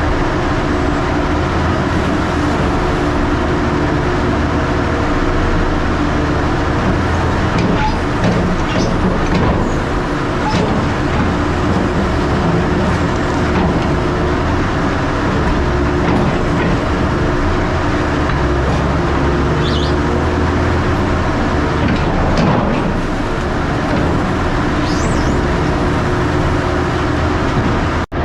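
Diesel engine of heavy construction machinery running steadily under load, with a few brief knocks and squeaks scattered through.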